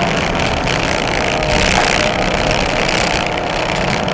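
Interior of a Fiat Cinquecento rally car at speed: the engine running hard under load together with road and tyre noise filling the cabin, loud and steady.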